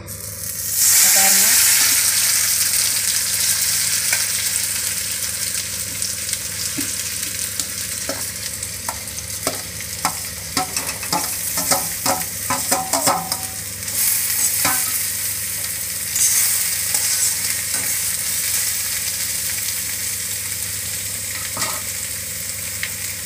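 Masala-coated elephant foot yam pieces sizzling in a little oil in an iron kadai. The sizzle jumps up sharply about a second in as the pieces go into the hot pan, then runs on steadily. A spatula stirs them, with clusters of clicks and scrapes against the pan midway.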